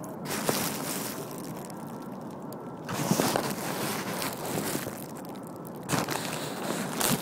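Handling noise from a phone put away and covered: rustling and scraping as it is jostled, in bursts about a second in, around three seconds in and twice near the end.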